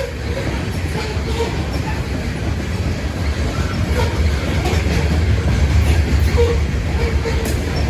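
Railway cars rolling past close by: a steady low rumble of wheels on rail, with faint clicks and a few brief squeals from the wheels.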